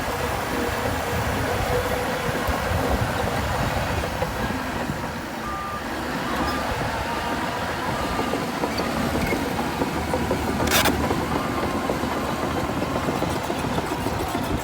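Heavy earthmoving machinery's diesel engines running steadily under work, with one short sharp knock about eleven seconds in.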